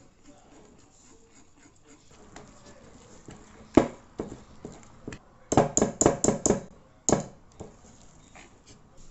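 Wire balloon whisk mixing flour into thick cocoa cake batter in a ceramic bowl: soft stirring, then the whisk clacks against the bowl's side, a few knocks a little under four seconds in, a quick run of about six, and one more after.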